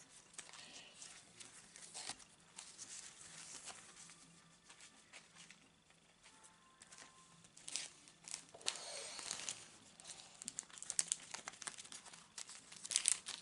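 Paper rustling and crinkling as sheets and small paper pieces are handled, in irregular bursts that get busier and louder near the end.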